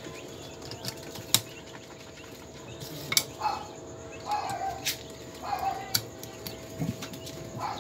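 Chickens clucking a few times in the background, with several sharp clicks from a screwdriver and fittings being handled inside a wooden incubator box, over a steady faint hum.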